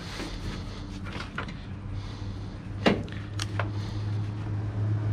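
Dismantling of a metal computer tower case: a few sharp clicks and knocks from parts being handled, the loudest about three seconds in, over a steady low hum that grows louder near the end.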